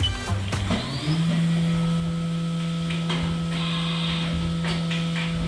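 CNC machine starting its cycle: a few clicks, a short rising whine, and then, about a second in, the spindle holds a steady hum with fainter higher tones above it. Coolant sprays against the enclosure window a few seconds in.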